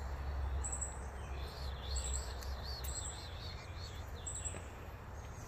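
Songbirds singing outdoors: a run of quick warbling chirps starting about one and a half seconds in and lasting a couple of seconds, with short high notes repeating about once a second, over a steady low rumble.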